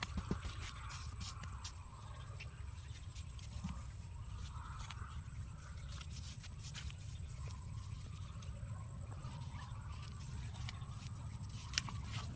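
Bare hands digging and scooping damp soil and mud around a hole, with scattered small scrapes and clicks, over a low steady rumble and a thin steady high tone.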